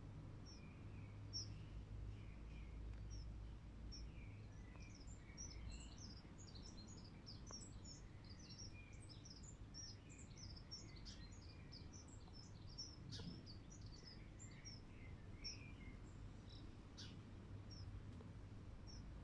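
Faint birdsong: many short, high chirps from small birds, densest through the middle, over a low steady background hum.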